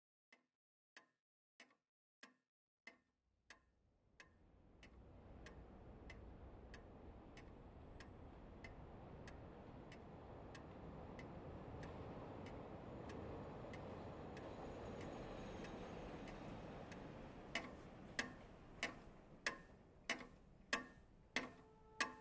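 Clock ticking steadily, about three ticks every two seconds. A low rumbling drone fades in beneath it about four seconds in and builds, and the ticks grow louder near the end.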